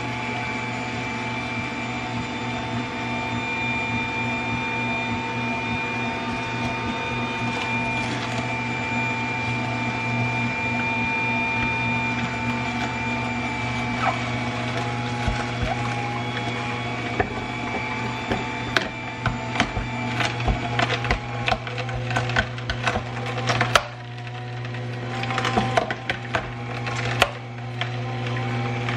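Aobosi cold press (slow masticating) juicer running with a steady motor hum and whine. From about halfway on, sharp cracking and snapping as carrots are crushed by the auger.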